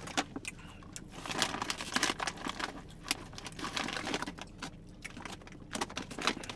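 Irregular crinkling and crackling of plastic packaging: a chip bag and a plastic water bottle being handled.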